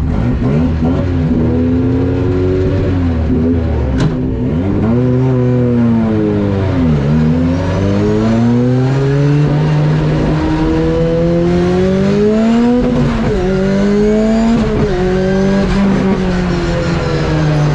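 A car engine driven hard, its pitch climbing under acceleration and falling away at gear changes and when lifting off, again and again. There is a sharp click about four seconds in.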